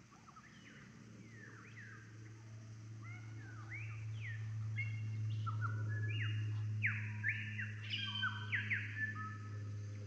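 Australian bush birds singing in chorus: many short whistled notes that sweep up and down in pitch and overlap, growing louder and denser toward the end. A steady low hum runs underneath.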